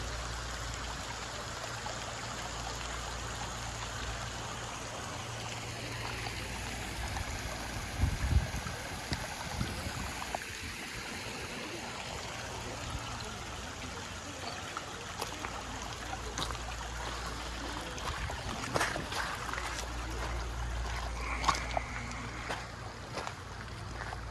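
Muddy flash-flood water running in shallow channels over gravel: a steady rushing with a low rumble beneath it, broken by a few short knocks, the loudest about eight seconds in.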